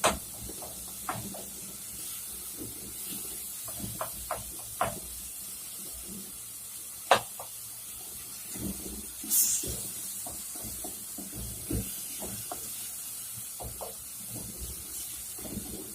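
Kitchen handling sounds: scattered light clicks and knocks of utensils and pots over a faint steady hiss, with one sharper click about seven seconds in and a brief hiss a couple of seconds later.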